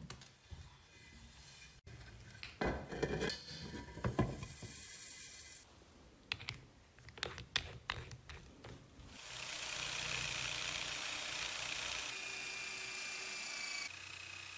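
Hand tools clicking and knocking against metal parts, then from about nine seconds a small power tool running steadily with a thin high whine.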